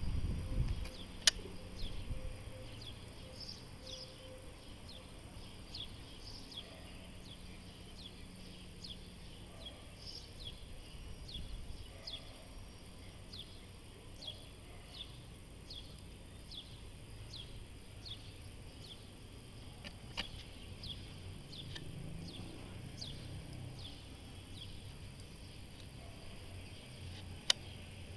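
Outdoor ambience: a short, high, falling chirp from a small animal repeats about every three-quarters of a second over a faint low rumble. Two sharp clicks stand out, one about a second in and one near the end.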